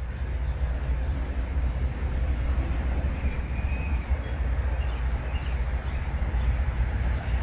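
Steady low rumble with an even hiss over it: outdoor background noise picked up by an action camera's small microphone.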